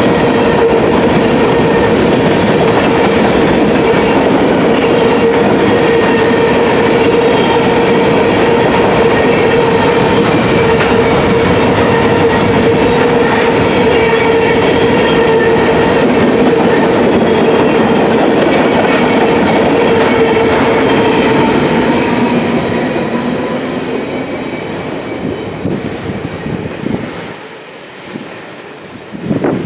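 Freight train cars of a grain train rolling past, wheels clacking over the rail with a steady high ringing tone. The sound fades away over the last several seconds as the end of the train passes.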